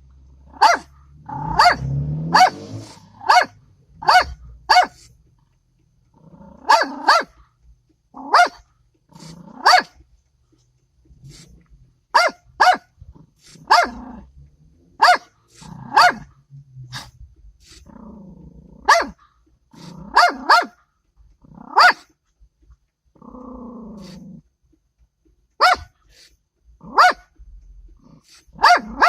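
Small dog barking sharply in ones and twos with short pauses, with low growls between some barks. It is alarm barking at a lifelike statue of a man, as at a stranger.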